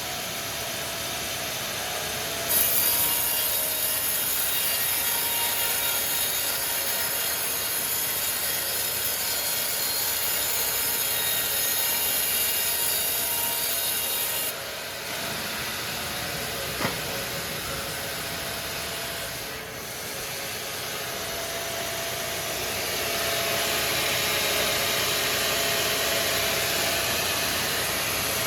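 Sawmill saw running and cutting through a log. A loud hiss starts about two and a half seconds in and stops abruptly about halfway through. A single sharp click comes a few seconds later, and the cutting noise swells again near the end.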